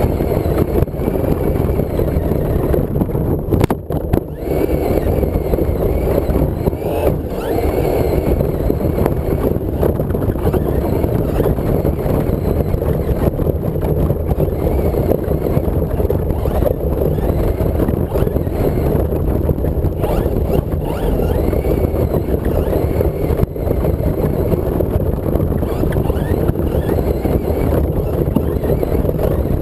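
Traxxas Slash radio-controlled truck driving across grass, heard from a camera mounted on its body: a loud, steady rumble of motor and drivetrain, with a faint whine that rises and falls with the throttle.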